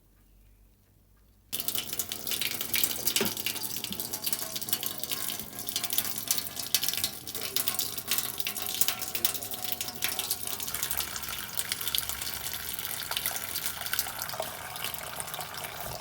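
A tap is turned on suddenly about a second and a half in, and water runs and splashes into a sink.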